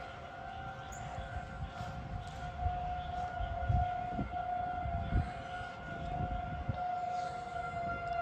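Outdoor tornado warning siren sounding a steady, unchanging tone, with irregular low rumbles underneath.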